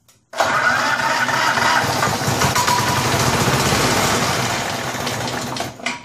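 Snapper 21-inch rotary mower's small engine starting abruptly about half a second in, running for about five seconds, then shutting off near the end. It runs a little rough with a noise that comes from a blade bent about three-quarters of an inch.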